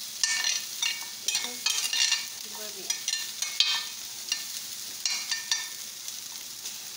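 Machaca (shredded dried beef) with chopped bell pepper sizzling in oil in a stainless-steel skillet. A utensil stirs it with irregular scrapes and clicks against the pan, busiest in the first four seconds and thinning out near the end.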